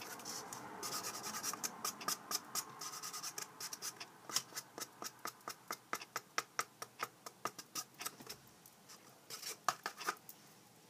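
Hands working tape onto a cardboard toilet-paper tube: a fast, uneven run of small crinkling clicks and rubs, which thins out briefly before a last cluster near the end.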